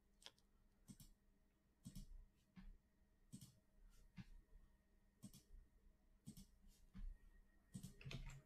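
Near silence with about a dozen faint, irregular clicks from a computer mouse and keyboard.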